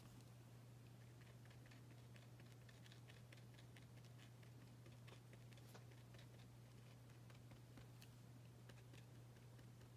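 Faint quick taps of a uni Posca paint marker's tip dabbing dots onto paper, several a second, over a steady low hum.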